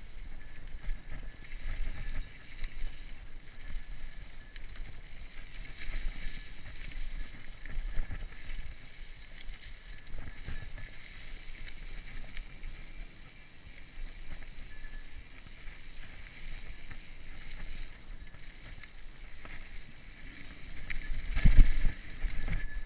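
Mountain bike riding over a dirt trail: tyres rolling on packed dirt and dry leaves, with the bike rattling and knocking over bumps and one heavy jolt near the end.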